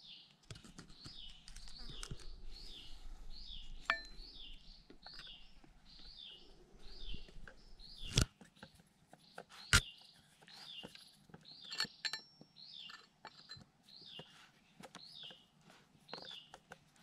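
A bird calling over and over, a short high downward-slurred note repeated about once every 0.8 seconds. A few sharp clicks and knocks fall among the calls, the loudest about eight and ten seconds in.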